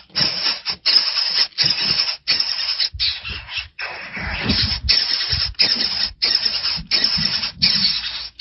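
Hawk nestlings begging, a rapid series of about a dozen harsh, noisy screams, each about half a second long with brief gaps between.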